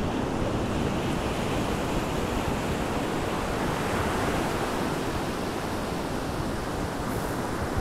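Steady rush of ocean surf mixed with wind noise on the microphone; the seals are not calling.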